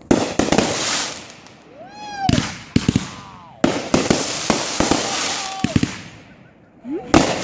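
Consumer fireworks going off: a series of sharp bangs, each followed by a long crackle.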